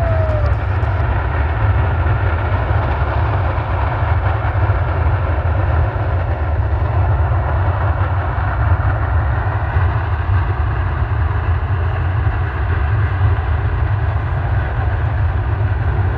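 Steamboat Geyser erupting: a steady, deep rumble with a rushing hiss of steam and water over it, holding without a break.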